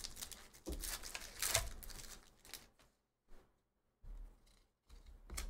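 Foil wrapper of a football trading-card pack crinkling as it is pulled open, then the cards rustling and sliding as they are handled and flipped through. It comes in short bursts, with a brief lull about three seconds in.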